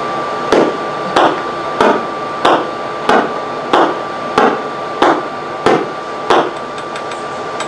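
Pulsar radio signal converted to sound, played over loudspeakers: a regular heartbeat of thumps, about three every two seconds, over a steady hiss. Each beat marks a rotation of the rapidly spinning star.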